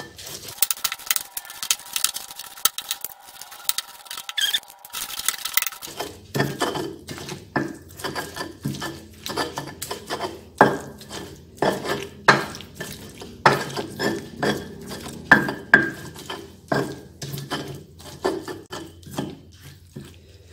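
Stone pestle grinding soft boiled chillies, shallots, garlic and tomatoes into sambal in a stone cobek mortar: irregular stone-on-stone grinding and scraping strokes with knocks, louder from about six seconds in.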